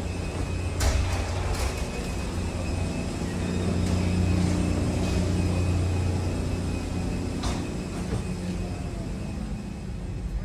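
Steady low hum of a parked airliner's cabin ventilation and onboard systems at the boarding door and in the cabin, with a few short sharp clicks.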